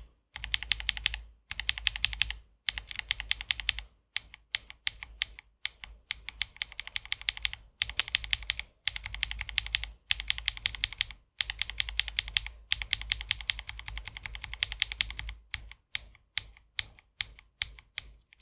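Typing on a mechanical keyboard fitted with Wuque Studio Light Tactile switches (pre-lubed, POM stem, nylon bottom housing): fast runs of keystrokes a second or two long, broken by short pauses, giving way to slower, separate keypresses near the end.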